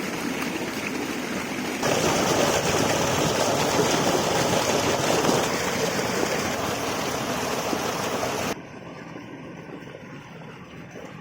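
Water rushing steadily, like a stream or small waterfall. It jumps louder about two seconds in, then cuts abruptly to a quieter, duller rumble near the end.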